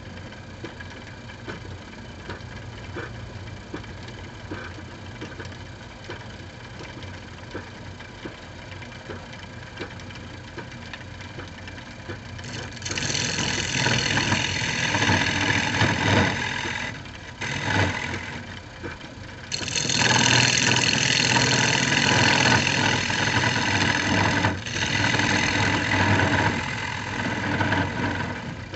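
Wood lathe running steadily with a cherry bowl blank spinning. About halfway through, a turning tool starts cutting into the spinning cherry wood, making a loud cutting noise in long passes with two short breaks.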